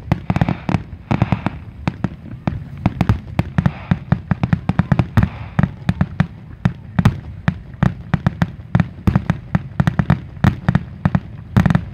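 Grand-finale barrage of aerial firework shells bursting in quick succession, several sharp bangs a second with a low rumble between them.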